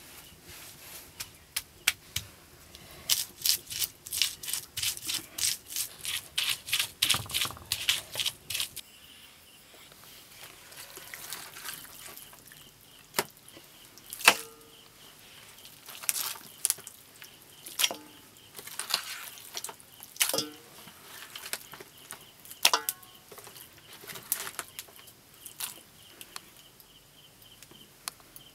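Garlic, chilli and onion being ground on a flat stone slab (silauta) with a hand-held grinding stone: rhythmic scraping strokes, about two or three a second, stopping about nine seconds in. Afterwards, scattered clinks and wet sounds of raw chicken pieces being handled in a steel bowl, over a faint steady insect chirring.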